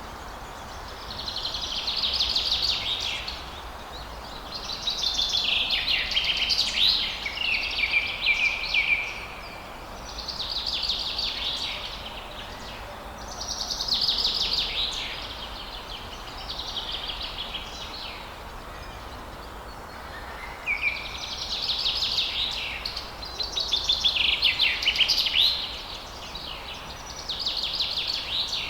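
Forest birds singing in bursts of rapid chirps and trills a few seconds long, recurring every few seconds, over a steady low background rumble.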